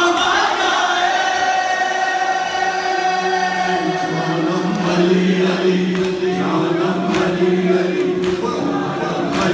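Urdu noha recited by a man singing long drawn-out lines into a microphone over a loudspeaker, with a crowd of mourners' voices singing along. A few sharp strikes come near the end, like the hand-on-chest blows of matam.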